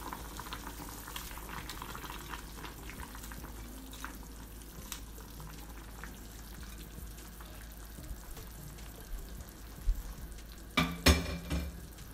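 Sinigang broth simmering in a small stainless saucepan with a faint, steady sizzling crackle and scattered small ticks as shrimp go in, then a short, loud clatter near the end.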